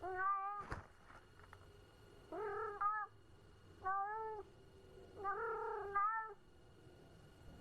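A cat meowing four times, each meow about half a second long and a couple of seconds apart.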